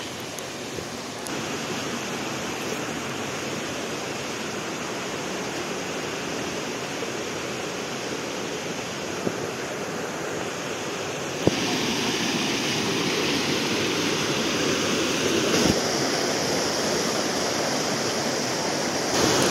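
Steady rush of a mountain stream and waterfall pouring over rocks. It steps up louder suddenly a little past halfway.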